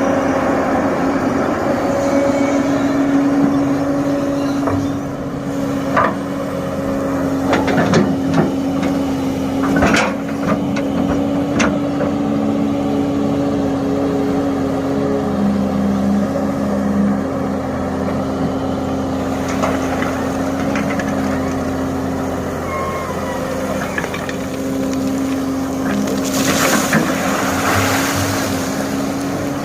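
Hitachi excavator's diesel engine running steadily as it works, with several sharp metallic knocks and clanks and a burst of hissing noise near the end.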